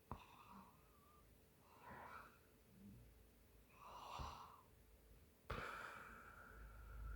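Faint breathing and soft snores of a sleeping woman, a few breaths about two seconds apart, then a longer drawn-out sound that starts suddenly near the end.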